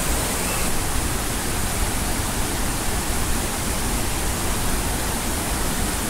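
A waterfall of about 40 m dropping into a pool: a huge, steady rush of falling water with no break.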